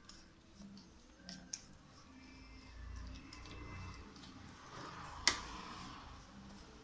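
A spatula stirring and pressing a thick, sticky coconut and condensed-milk mixture in a nonstick pan to break up lumps. It makes soft scraping with a few light clicks, and one sharp click about five seconds in.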